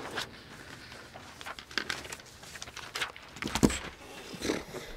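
Scattered rustles, clicks and knocks of players handling music and instruments between takes, with one louder thump about three and a half seconds in.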